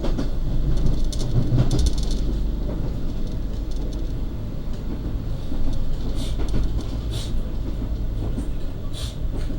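Argo Bromo Anggrek express train running at speed: a steady rumble of wheels on rail, with a few brief sharp high-pitched noises about six, seven and nine seconds in.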